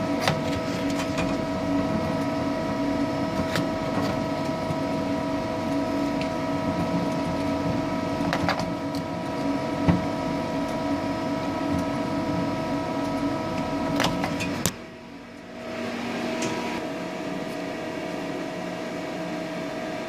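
Steel hinged-belt chip conveyor of a CNC lathe running steadily, carrying steel chips up its incline: a constant motor hum with occasional sharp clanks from the belt plates. About fifteen seconds in the sound drops away for a moment, then carries on a little quieter.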